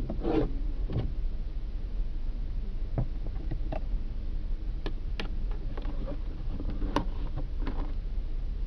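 Skoda Octavia A7 idling while stopped, heard from inside the cabin as a steady low hum. The windscreen wiper swishes across the glass at the start, and a few faint clicks follow.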